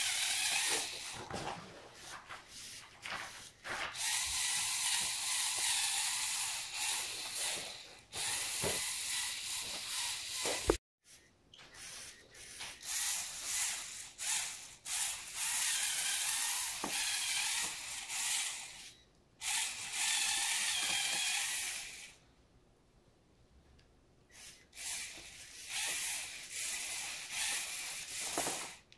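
Lego Technic rock crawler's XL motor driving its four-wheel-drive gear train: a buzzing, whirring gear grind that stops and starts many times. There is a single sharp click about eleven seconds in and a pause of about two seconds near the end.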